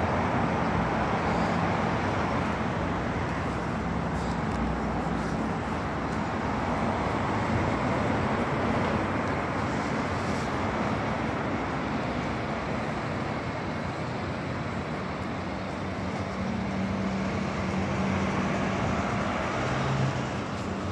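Steady road traffic: cars and a bus running along a busy multi-lane road, an even rumble with engine hum.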